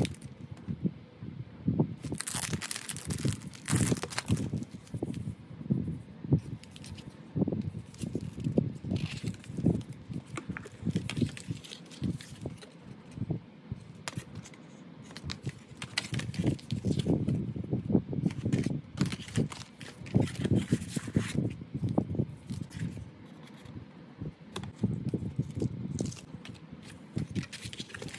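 Plastic wrapping crinkling and rustling as it is opened, loudest about two to four seconds in. Then stiff card postcards and a cardboard folder frame are handled, with irregular taps, slides and rustles.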